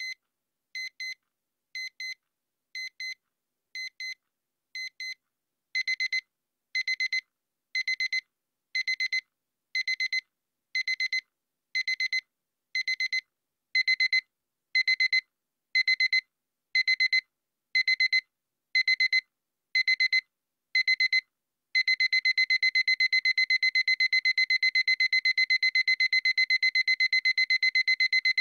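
Digital alarm clock beeping at a high pitch in an escalating pattern: short double beeps about once a second, then longer, louder bursts about once a second from about six seconds in, louder again around fourteen seconds, and from about twenty-two seconds a continuous rapid beeping.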